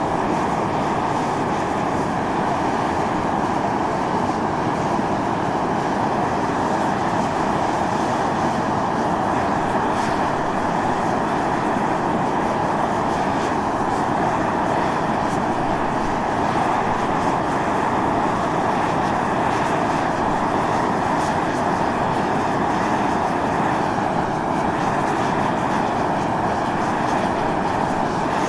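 Volcanic fumarole jetting steam and gas with a steady, loud hissing roar that stays even throughout.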